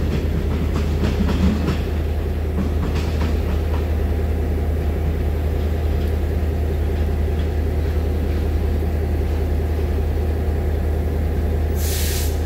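An EMU900 electric multiple-unit commuter train standing at the platform: its onboard equipment gives a steady low hum with a steady tone on top. There are a few clacks in the first seconds, and a short sharp hiss of released air near the end.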